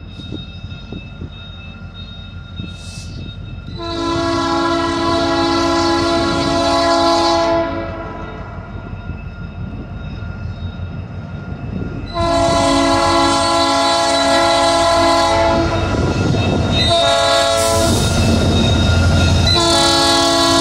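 Illinois Central EMD SD70 diesel locomotive sounding its multi-chime air horn as it approaches: a long blast, a second long blast, a short one and a final long one, the grade-crossing signal. Under the horn is the low rumble of the diesel engines and the wheels on the rails, growing as the locomotives draw near and pass.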